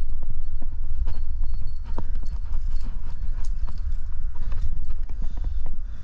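Irregular knocks and scrapes of a climber's gloved hands and shoes jamming and moving in a granite crack, over a steady low rumble on the head-mounted camera's microphone.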